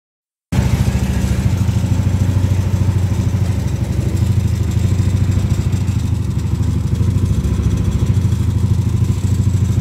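Yamaha Aerox scooter engine idling steadily with a rough, rasping 'srak-srak' noise, like one component rubbing against another. The noise is loudest at idle and eases at higher revs, and the mechanic puts it down to friction between parts. It starts about half a second in.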